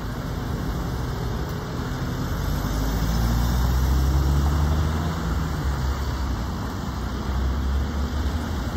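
Road traffic passing close: car engines and a heavy recovery truck towing a bus. A low engine hum swells to its loudest about four seconds in.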